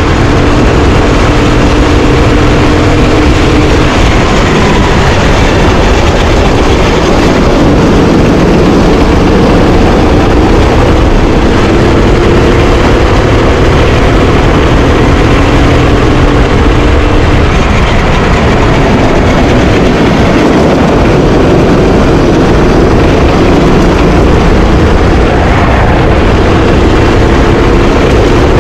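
Rental racing kart's engine running at racing speed, its pitch climbing and dropping several times as the revs rise and fall, under a loud, steady rushing noise.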